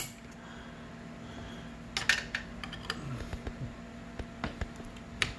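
An RJ45 Ethernet plug clicking into the motherboard's rear network port, then scattered clicks and light knocks as the cables are handled and moved.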